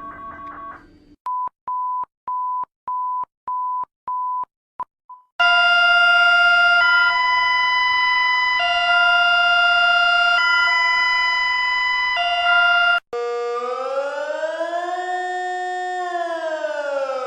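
A run of emergency alert tones played back: a brief pulsing chord, then about eight short beeps at roughly two a second, then a loud electronic multi-tone alert that swaps between two chords about every second and a half. About thirteen seconds in, it gives way to a wailing siren tone that rises, holds and falls slowly.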